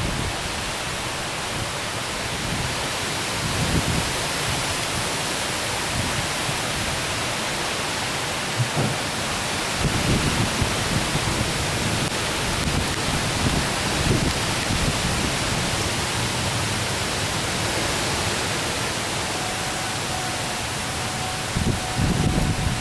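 Heavy storm rain pouring steadily, with low rumbling gusts of wind buffeting the microphone now and then. A faint steady tone comes in near the end.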